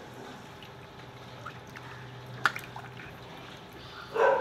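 A ladle stirring rice, vegetables and water in a large metal pot of biryani, with soft liquid stirring sounds and one sharp click about halfway through. A short loud sound comes right at the end.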